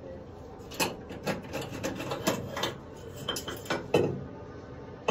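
Metal funnel being handled and pulled out of the filler of an aircraft engine oil replenishment tank: a run of short scrapes and knocks, the loudest about four seconds in.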